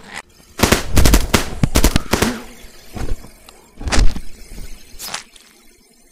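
Cartoon sound effects: a rapid volley of gunshots, then three single heavy hits about a second apart.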